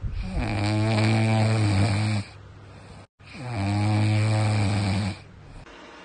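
French bulldog puppy snoring in its sleep: two long, steady snores of about two seconds each, with a short pause between.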